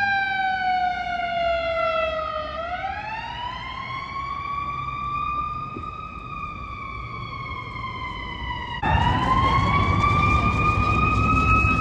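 Emergency vehicle siren on a slow wail, its pitch sweeping down, then up, then gently down in long glides. About nine seconds in, the sound cuts abruptly to another slow siren wail over louder street traffic.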